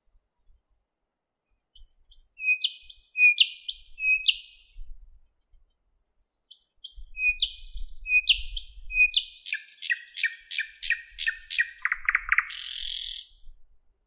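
Thrush nightingale singing: two phrases of quick repeated whistled notes with a short pause between them, then a run of loud clicking strokes, about three a second, ending in a rasping rattle.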